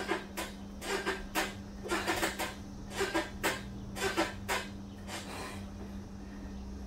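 A man breathing hard in quick, sharp breaths in rhythm with his bench press reps during a high-rep bodyweight set, often two breaths close together. The breaths stop for about two seconds near the end. A steady low hum runs underneath.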